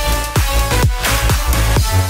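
Electronic dance music with a steady kick drum at about two beats a second under sustained synth chords.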